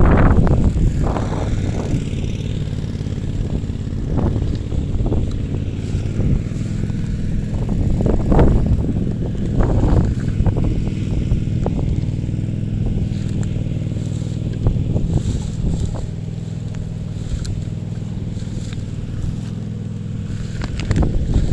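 A small engine running steadily, with wind rumbling on the microphone and a few short knocks.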